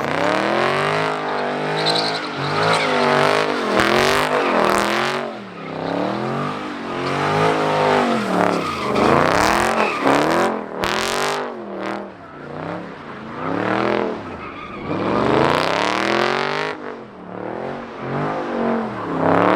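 Car engine revved hard up and down over and over, its pitch rising and falling in quick sweeps, with a few short sharp noisy bursts mixed in.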